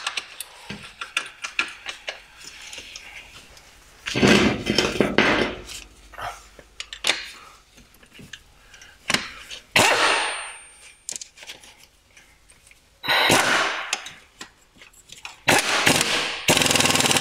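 A cordless power tool running in four short bursts while it drives bolts at the gearbox bellhousing, with scattered clicks and knocks of metal on metal between the bursts.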